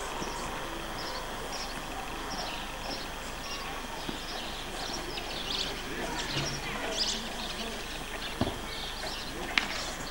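Small birds chirping over and over behind a steady hiss, with a couple of sharp knocks near the end.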